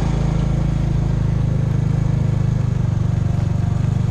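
Small motorcycle engine running at a steady speed: a low, even drone with a fast flutter.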